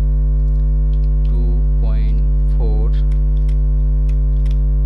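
Loud, steady low electrical mains hum, with a few faint computer-keyboard key clicks as text is typed.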